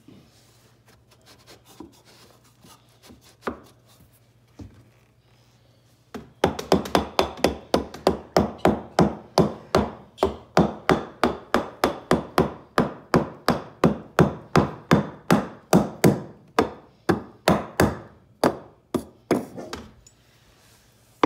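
Hammer driving small finish nails into the base of a wooden support post: a steady run of quick blows, about three a second, starting about six seconds in and stopping near the end. Before the hammering, a few light knocks of wood being moved.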